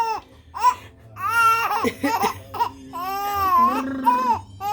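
Five-month-old baby squealing with delight: a few long, high-pitched calls that rise and fall, with short breaks between them.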